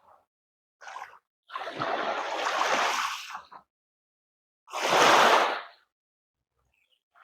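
Sea waves washing in, heard as three separate rushing surges, the last the loudest, with silence between them.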